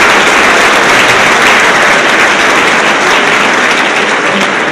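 Audience applauding, a dense and steady clapping that eases off slightly near the end.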